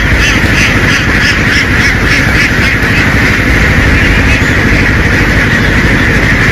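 A flock of ducks quacking in a rapid run of calls that fades out about halfway through, over the steady low rumble of a truck.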